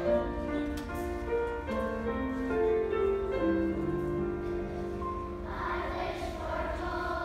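Young children's choir singing in unison, with guitar accompaniment.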